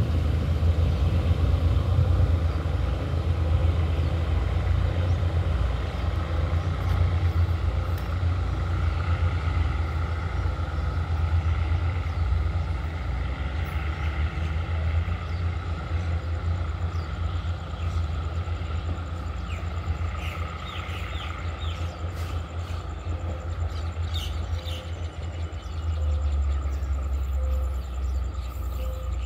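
Diesel commuter train pulling away, its low engine rumble fading slowly as it draws off down the line.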